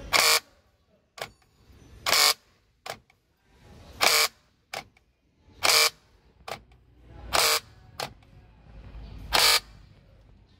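Mitsubishi Xpander front-left door lock worked again and again by the central-lock switch: six short, loud actuations about every two seconds, each with a fainter click between. This is the noisy door-lock sound that the check is about.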